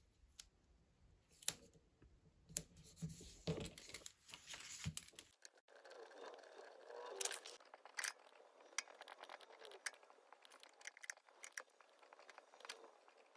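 Faint handling of paper planner pages and stickers, with scattered light taps and scratches of a pen writing on paper. The low background noise cuts out suddenly about five seconds in.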